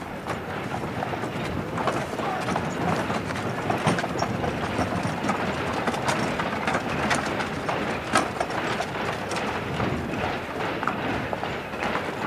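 A horse's hooves clip-clopping on cobblestones as it draws a heavily loaded cart on wooden spoked wheels, a dense run of knocks with no pause.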